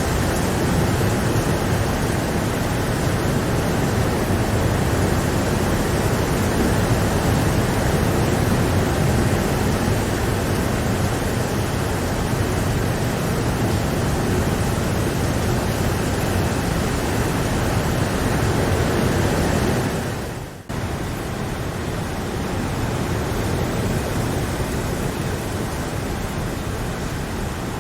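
Steady rain, a dense even hiss of falling water. About two-thirds of the way through it fades briefly and drops out for a moment, then comes back slightly quieter, like a splice between recordings.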